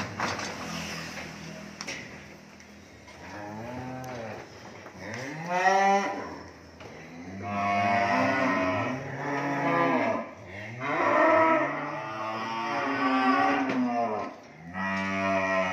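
Several cattle mooing one after another, long drawn-out calls that start a few seconds in and at times overlap.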